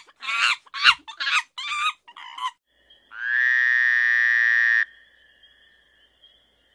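A quick run of about six short croaking calls, like frogs. About three seconds in, a held electronic tone sounds for a second and a half, cuts off sharply and leaves a faint steady two-note hum.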